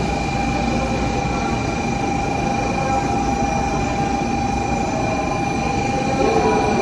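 Shinkansen train running at the platform: a steady rumble with a constant high whine held over it.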